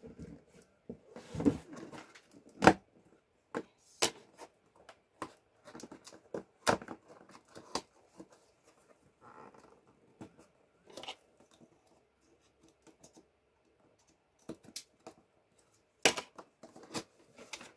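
Handling and opening a small cardboard box: its adhesive tape being cut, and irregular clicks, taps and scrapes of the box being turned and its flaps worked open, with a sharp knock about three seconds in.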